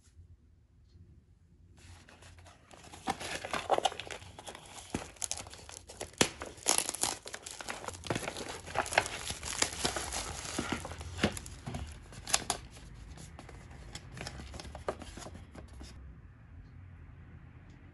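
Plastic shrink-wrap film being torn and peeled off an instant-noodle cup: a dense run of crinkling and crackling that starts about two seconds in and stops near the end.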